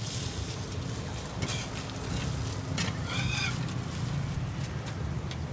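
Egg and burger patty sizzling on a flat steel griddle while a metal spatula scrapes and taps the hot plate, with sharp taps about one and a half and three seconds in. Just after the second tap comes a short high-pitched squawk-like call.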